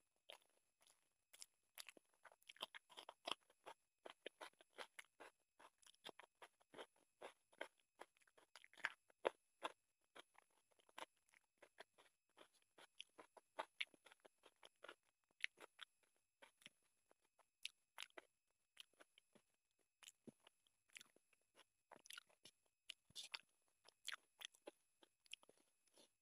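Close-miked eating of rice and chicken curry by hand: wet chewing, lip smacks and mouth clicks mixed with the squelch of fingers squeezing curry-soaked rice, a quick irregular run of short smacks, several a second, with a louder cluster near the end.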